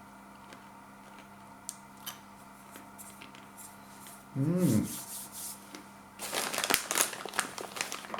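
Takis rolled tortilla chips and their crisp packet being eaten from: a few small clicks, then a dense crackling for about two seconds near the end. A short 'mmm' hum comes about halfway through.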